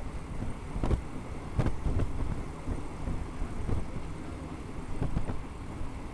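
Passenger train running along the track, heard from inside the carriage at an open window: a steady low rumble with irregular knocks from the wheels and running gear, and wind buffeting.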